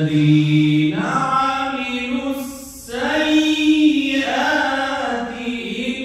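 A man's voice reciting the Quran in the slow, melodic mujawwad style through a microphone, holding long ornamented notes that bend in pitch. He breaks for a short breath about two and a half seconds in, then starts a new drawn-out phrase.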